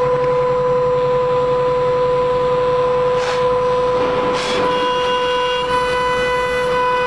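Mini CNC router engraving a metal plate: the spindle and cutter run with a loud, steady whine, with two brief hissy swells about halfway through and higher tones joining in during the second half as the machine moves.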